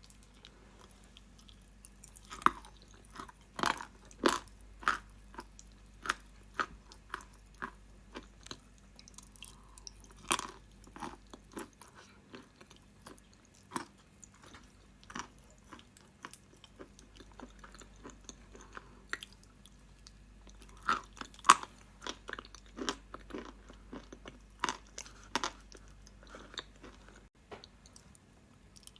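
Close-miked biting and chewing of dry, crunchy edible clay: irregular sharp crunches, louder clusters of bites a couple of seconds in and again about twenty-one seconds in, and softer chewing between.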